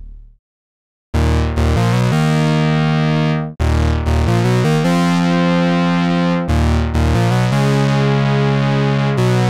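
Trueno hybrid analog synthesizer playing a demo patch. After the previous sound dies away and about a second of silence, sustained bright notes with a strong bass start, changing pitch in short phrases. There are brief breaks near four and six and a half seconds.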